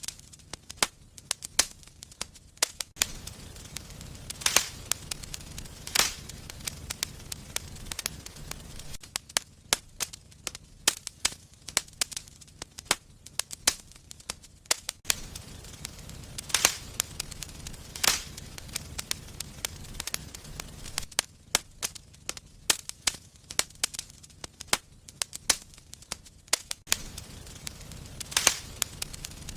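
Wood fire in a fireplace crackling, with frequent sharp snaps and pops, a handful of them much louder, over a low rumble of burning that comes and goes.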